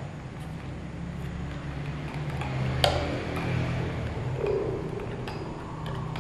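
Small clicks and taps from handling an iced drink in a plastic cup, with one sharp click about three seconds in, over a low steady hum.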